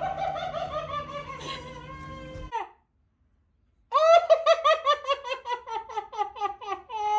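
High-pitched laughter, a child's giggling. A drawn-out laugh falling in pitch cuts off about two and a half seconds in. After a second of silence, a fast run of giggles starts, several a second, each dropping in pitch.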